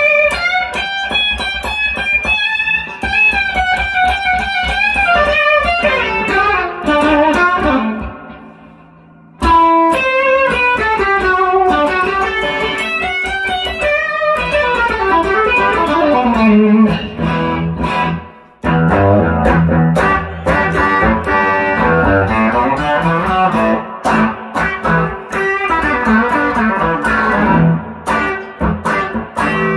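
Electric guitar: a 1957 Fender Esquire with a 1950s Fender flat-pole lap steel pickup, played through a 1965 Fender Deluxe Reverb amp, with more breakup and a squished, compressed attack. Single-note lines with string bends let ring out and fade about 8 seconds in. The playing then starts again with falling runs and moves into busy chord-and-bass rhythm playing.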